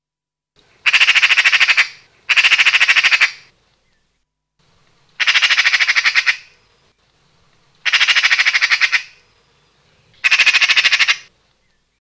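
Magpie chattering: five harsh rattling calls, each about a second of rapid notes at roughly ten a second.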